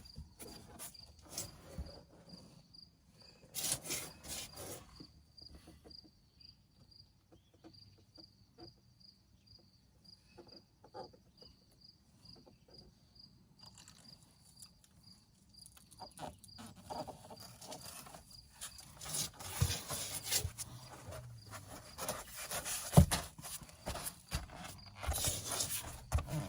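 An insect chirping steadily, a high-pitched chirp repeated about three times a second, with scattered knocks, rustling and scraping from hand work close by that grow busier in the last third.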